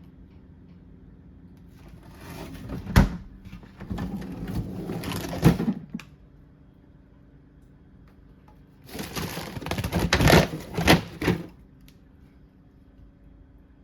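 Two bouts of rustling and clattering with several sharp knocks, from things being handled and set down, starting about two seconds in and again about nine seconds in.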